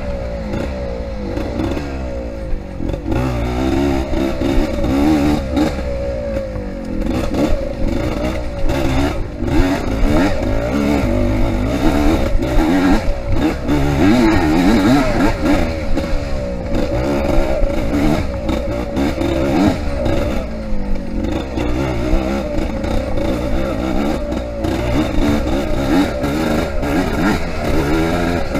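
Yamaha IT 200 two-stroke dirt bike engine revving up and down over and over while ridden hard off-road, with frequent clattering knocks from the bike over rough ground.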